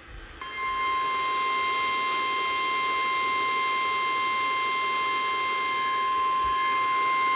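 NOAA Weather Radio warning alarm tone, a single steady 1050 Hz tone that starts about half a second in and holds unchanged, over radio hiss. It is the attention signal that comes before a broadcast warning message.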